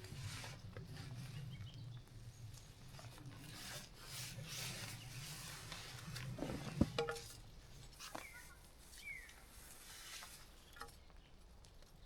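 Irregular rustling and scraping of things being handled, with one sharp knock about seven seconds in. A low steady hum fades out shortly after the knock.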